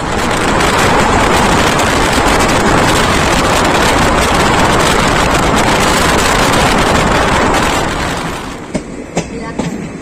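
Passenger express train running at speed, heard from on board: a loud rushing of wind and rail noise that eases about eight seconds in, followed by a few sharp clicks.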